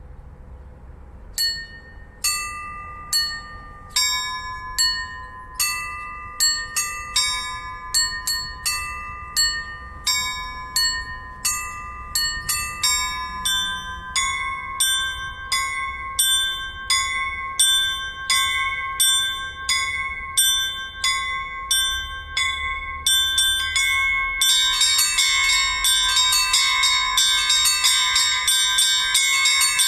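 Hand-rung Orthodox church bells. Separate strokes on bells of differing pitch come steadily faster, then about 24 seconds in many bells ring together in a dense, louder peal.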